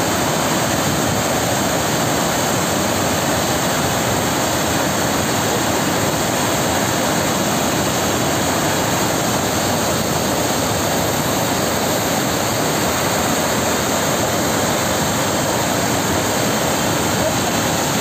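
Steady, loud rush of water overflowing a dam spillway in a wide curtain and falling into churning foam below.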